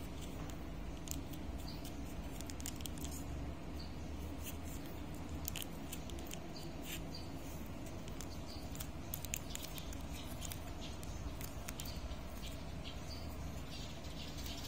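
Faint, irregular small clicks and soft squishes of thick black bean sauce being squeezed from its packet onto instant noodles in a paper cup, with metal chopsticks in the noodles, over a steady low hum.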